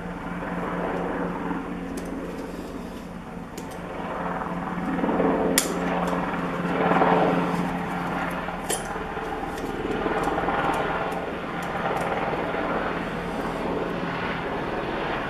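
A steady, engine-like drone that swells and fades, with a few sharp metallic clicks from hand tools working at a circlip on a gear shaft in a two-stroke engine's crankcase.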